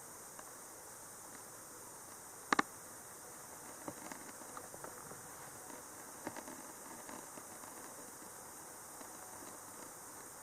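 Faint, steady rush of a shallow creek, with a few scattered small ticks and a sharp double click about two and a half seconds in.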